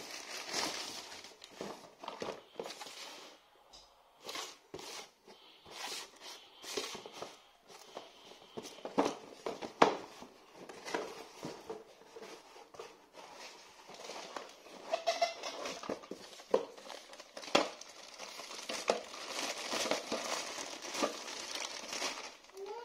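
Plastic packaging crinkling and rustling as a cardboard box is pulled out of a plastic mailer bag and its flaps are opened, then a clear plastic bag is rustled near the end. Irregular sharp clicks and taps of cardboard being handled, the loudest about ten seconds in.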